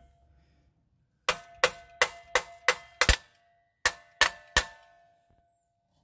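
Hammer tapping a new rear hub bearing assembly into a Toyota Camry's drum-brake backing plate. There are about ten sharp metallic strikes, each ringing briefly: seven in a quick even run with the heaviest at the end, then after a short pause three more.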